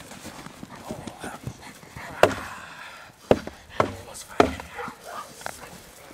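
Young Perro de Presa Canario (Dogo Canario) barking in a few short, sharp barks while lunging on its leash in protection training.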